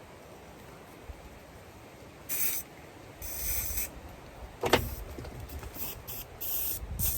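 Several short bursts of close rustling or brushing, with one sharp knock about halfway through.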